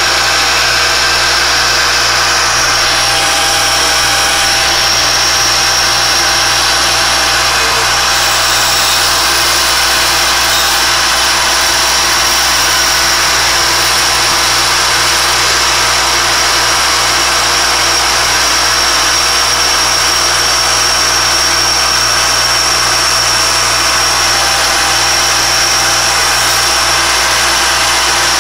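Alexander Model 3A pantograph milling machine's spindle running steadily with a steady high whine, its 1/8-inch four-flute carbide end mill cutting a circular pocket through thin German silver sheet.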